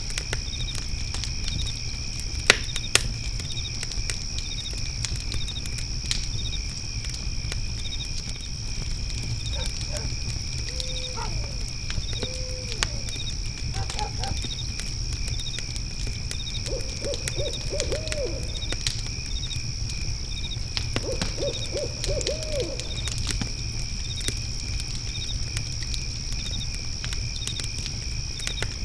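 Fire pit crackling with scattered pops over a low rumble, under steady cricket chirping about twice a second. In the middle an owl calls several times, including two quick series of hoots.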